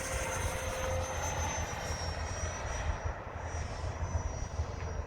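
Electric ducted fan of a radio-controlled F-22 model jet in flight: a steady high whine that slides a little lower in pitch over the first couple of seconds, over a low rumble.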